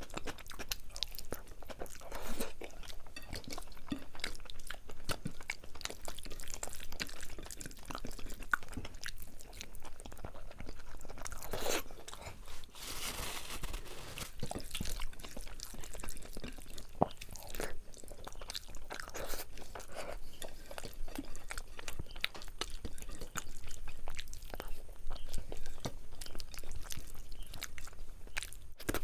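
A person chewing food close to the microphone, with wet mouth sounds and irregular crunching.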